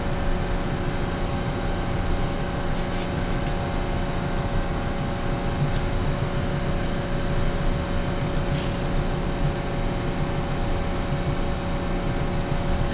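Steady mechanical hum of background machinery, holding a few fixed pitches, with a few faint light clicks about three seconds in and again near nine seconds.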